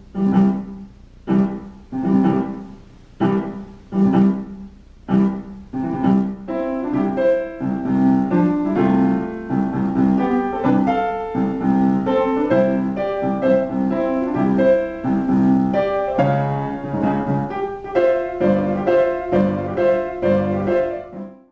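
Piano music: separate chords struck about once a second, then a busier flowing melody from about six seconds in, stopping at the very end.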